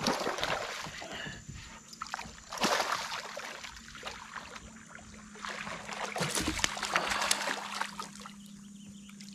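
Hooked fish splashing at the water's surface beside a kayak as it is reeled in, in several irregular bursts, the longest from about five and a half to seven and a half seconds in.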